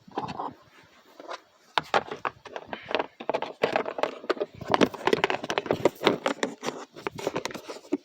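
Hand tools clicking and rattling against each other as they are picked up and moved about, with dense clatter from about two seconds in.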